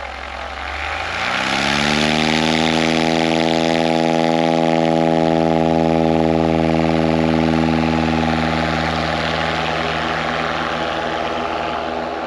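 An engine revs up about a second in and then runs at a steady high speed with a strong, even hum, easing off slightly near the end.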